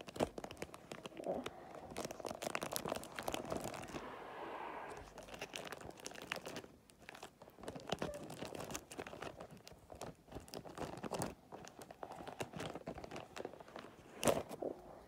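Wrapping paper crinkling and rustling as a present is wrapped by hand, with scattered taps and clicks and a brief steady hiss about four seconds in.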